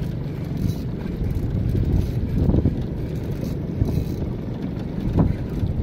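Low, steady rumble of wind on the microphone aboard a small boat moving across open sea, swelling briefly a couple of times.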